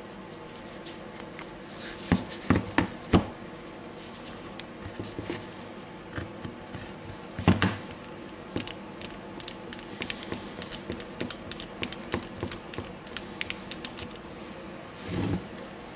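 Metal internal parts of a Dewalt DCH273 rotary hammer being handled and seated into the plastic gearbox housing: scattered clicks and knocks, with a few louder clacks about two to three seconds in and another near the middle, then a soft rustle near the end.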